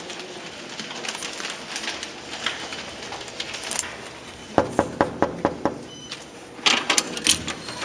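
A quick run of about six knocks, knuckles rapping on a door, a little past the middle, with faint rustling and a few clicks around it.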